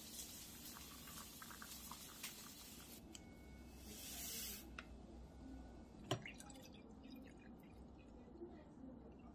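Faint kitchen pouring sounds: hot water poured from an electric kettle into a cup of instant noodles, then a brief hiss of iced-tea powder tipped from a stick sachet into a glass. A single sharp knock follows, and bottled water trickles into the glass near the end.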